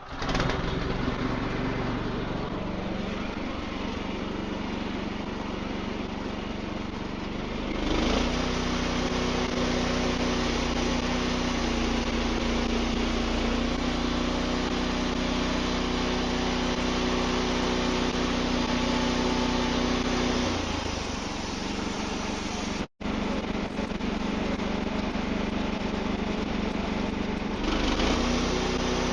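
Wood-Mizer LX55 portable band sawmill running, its engine driving the bandsaw blade through a white oak log on the first face cut. The engine steps up in level with a steady hum about eight seconds in, eases off past the middle, and cuts out for an instant before picking up again.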